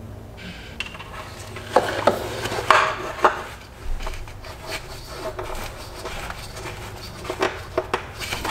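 Hands working plastic parts under the hood: knocks, clicks and rubbing as the transmission fill cap is put back in place. The loudest clunks come about two to three seconds in.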